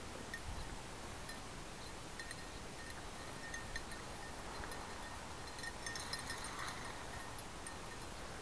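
Faint, irregular metallic tinkling over a steady hiss, growing busier about six seconds in.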